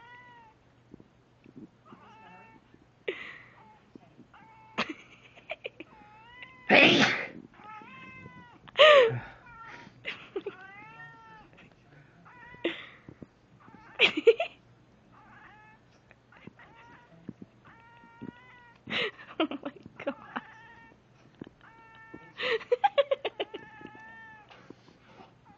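A cat meowing and yowling in repeated drawn-out, arching cries, with several loud, sudden sneezes among them.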